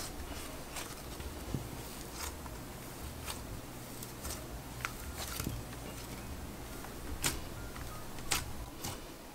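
Hands squishing, folding and pressing a pink icy cloud hybrid slime, giving scattered soft crackles and clicks, with the two sharpest near the end.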